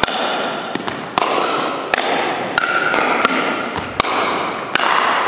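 Pickleball rally: paddles hitting the plastic ball and the ball bouncing on the wooden gym floor. About ten sharp knocks come at uneven intervals, echoing in the hall over a steady background.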